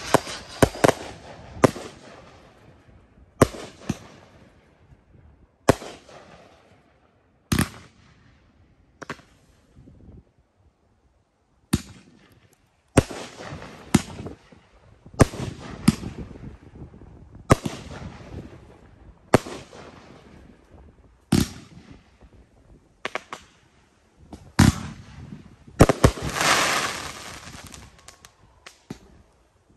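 Consumer firework cakes firing a string of shots: sharp bangs about every second or two as the comets launch and burst, with a longer crackling hiss near the end.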